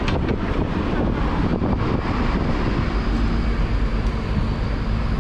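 Steady city street traffic heard from a moving bicycle, with wind rumbling on the microphone. A faint steady hum joins about three seconds in.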